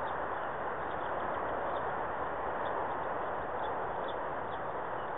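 Steady, even outdoor background hiss with a few faint, short high chirps scattered through it.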